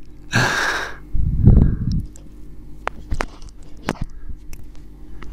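A short hiss and a low rumble, then a few sharp computer mouse clicks spread over the next couple of seconds.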